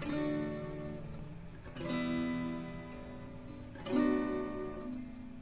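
Background music: strummed acoustic guitar chords, a new chord struck about every two seconds and left to ring.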